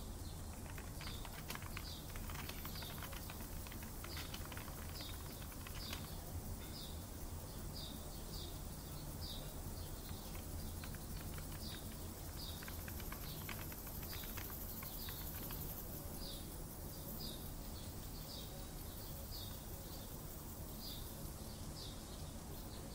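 Mixed office-and-park ambience: small birds chirping over and over in short high notes, with runs of keyboard typing clicks in the first few seconds and again about halfway through, over a steady low hum.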